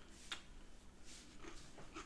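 Faint chewing with a few soft mouth clicks.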